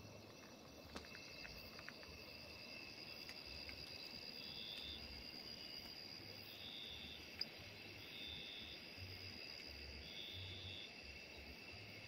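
Faint chorus of night insects chirring in the forest: a steady high-pitched trill, with a second, higher note that joins in short bursts about every two seconds from roughly a third of the way in. A few light clicks near the start and one sharp click a little past the middle.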